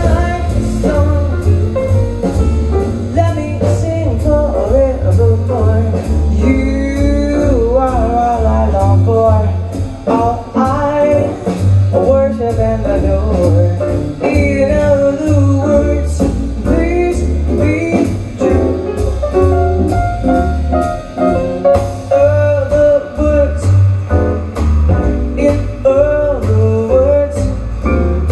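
A jazz vocal record with a band: a voice singing over pulsing bass and frequent drum hits. It is played back from a Kronos Pro turntable through 300B valve monoblock amplifiers and large horn loudspeakers, and heard in the listening room.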